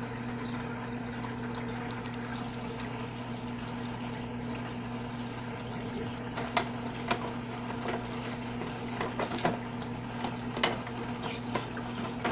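Small water pump humming steadily, with water trickling. Scattered light clicks and taps come in over the second half.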